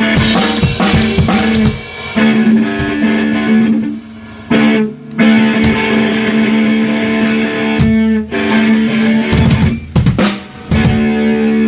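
Rock band music with a drum kit (kick and snare) under sustained guitar chords. It breaks off briefly twice before the beat comes back in.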